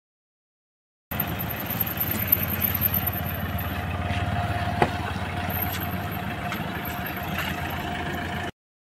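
Mahindra Scorpio SUV's engine idling steadily at a standstill, with a single click about halfway through as the rear door latch opens. The sound cuts in abruptly about a second in and cuts off shortly before the end.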